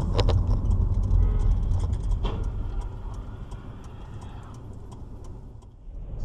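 Dashcam recording of a moving car's engine and road rumble, low and steady, getting gradually quieter over the last few seconds. A few sharp knocks come in the first moment and another about two seconds in, with scattered light clicks throughout.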